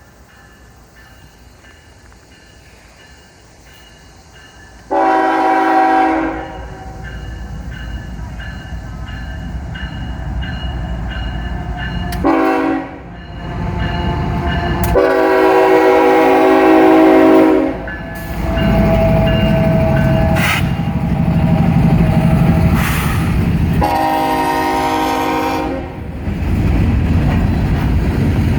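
Freight train locomotive horn sounding four blasts, the second one short, over the growing low rumble of the diesel locomotives as the train draws near and passes.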